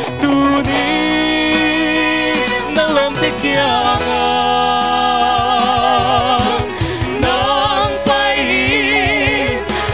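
A man and a woman singing a gospel song together with vibrato, backed by a live band with drums, bass, guitars and keyboard strings.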